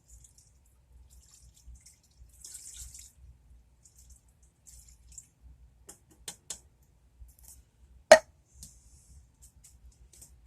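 Canned chicken broth being poured into the Instant Pot's inner pot, with a short splashing pour and scattered drips, then a few light clicks and one sharp knock a little after the middle.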